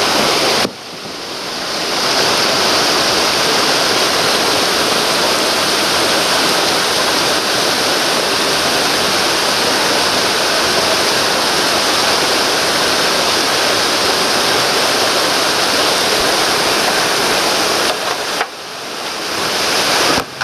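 Whitewater rapids rushing over rocks: a loud, steady wash of water noise that dips briefly about a second in and again near the end.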